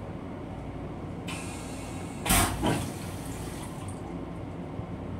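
A train toilet on an M7 railcar flushing. A rinse hiss starts about a second in, then a sudden loud whoosh comes just after two seconds and dies away over the next second or so. The train's steady running rumble sounds underneath.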